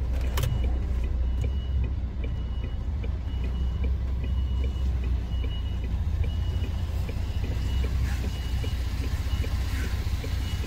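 Lorry diesel engine running at low revs as the truck creeps along, a steady low rumble heard from inside the cab. A faint high beep repeats about once a second over quick regular ticks, with a single sharp click near the start.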